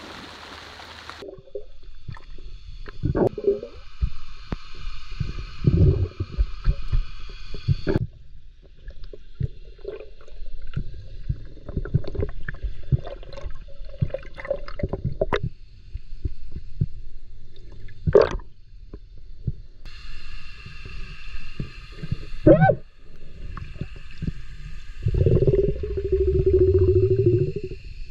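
Splash of a swimmer entering a pond, cut off about a second in as the action camera goes under. Then underwater sound of swimming: muffled knocks, thumps and water movement, with a steady high whine that comes and goes and a louder low rumble near the end.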